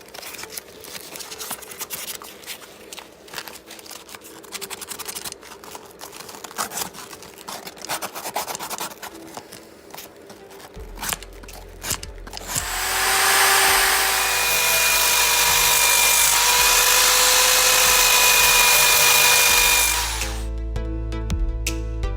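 Clicks and scraping of hand work on metal parts, then a power tool running loudly and steadily for about seven seconds before stopping.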